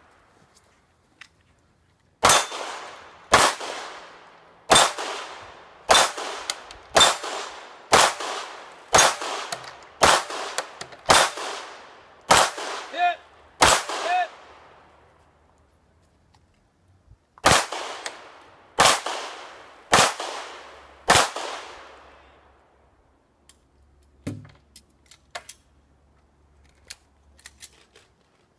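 Gunshots from a shooter running a practical shooting stage: about a dozen shots at roughly one a second, a pause of about three seconds, then four more, each with a short echo. Faint clicks and a dull thump follow near the end.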